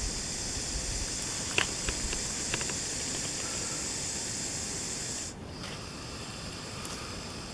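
Blunt-nosed viper hissing: one long, steady hiss that breaks off sharply about five seconds in and resumes softer. A few faint clicks sound in the first half.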